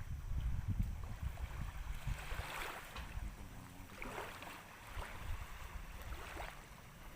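Wind rumbling on the microphone, then water sloshing in four soft washes over the next few seconds.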